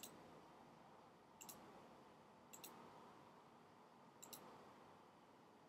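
Faint computer mouse clicks, three in all about a second and a half apart, each a quick pair of ticks, over a quiet room hiss.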